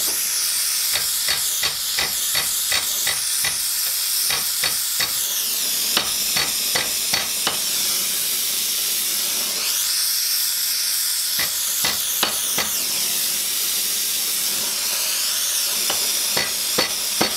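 Gas torch flame hissing steadily as it heats a metal rod red-hot in a bending jig. Irregular sharp crackles and clicks run through it, coming thickly in the first half, again briefly past the middle, and near the end.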